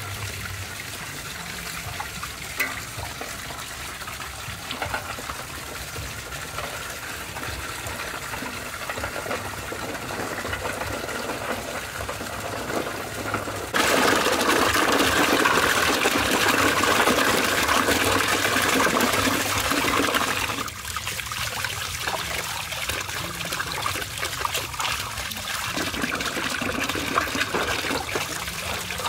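Water running from an open pipe into a metal basin of eggs, a steady splashing trickle. A little before halfway it turns louder for several seconds, gushing and splashing as a basket of eggs is tipped into the water, then settles back to the running stream.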